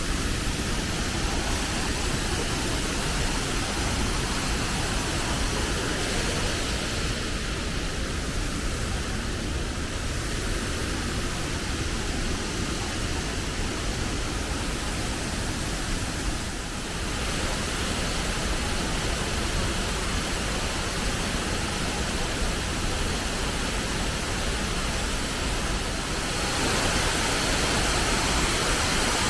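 Waterfall rushing: a steady, even roar of falling water that grows louder about 27 seconds in.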